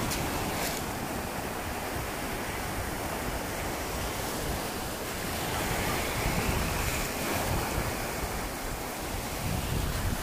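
Small sea waves breaking and washing in over shallow water at the shoreline: a steady rush of surf.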